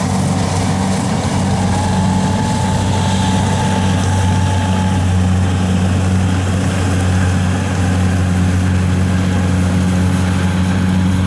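Engine of a tracked rice-hauling carrier running steadily as it crawls across the field, loaded with about 110 sacks of rice; an even, unbroken low drone.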